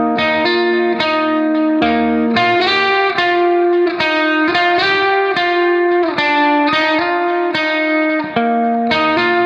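Background music: a plucked guitar melody, its notes changing about twice a second at a steady level.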